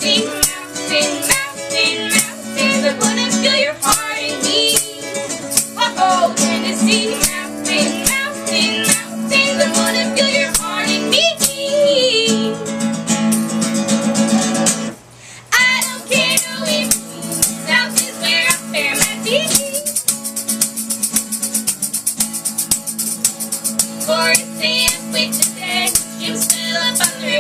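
Live acoustic music: a strummed guitar with a shaker keeping time and women's voices singing. The music breaks off for a moment about halfway through, then comes back in, with the shaker more prominent.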